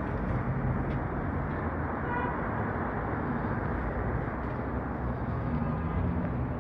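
City bus engine idling at a stop, a steady low hum with street traffic noise around it. A brief faint beep sounds about two seconds in.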